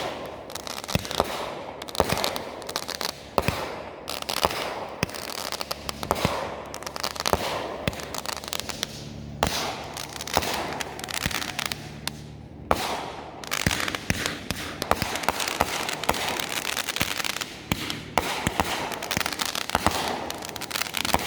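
Fireworks going off: a rapid run of sharp bangs from bursting shells and firecrackers, with crackling between them.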